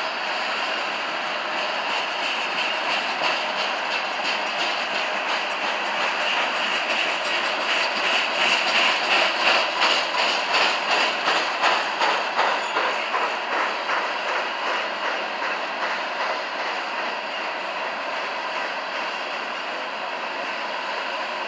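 CSX train rolling past, its wheels clicking over the rail joints in an even rhythm over a steady rolling noise; the clicking is loudest in the middle of the passage.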